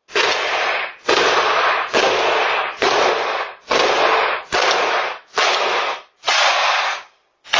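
Heavy blows on a front door, about one a second, each a loud crash distorted by the doorbell camera's microphone.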